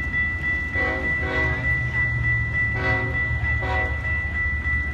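Diesel locomotive horn sounding four short blasts in two pairs, over the steady low rumble of a passing train.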